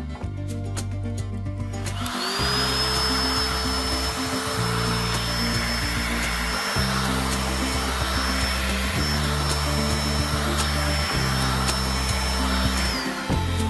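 A small electric motor with a fan runs steadily with a high whine. It spins up about two seconds in and winds down near the end, over background music.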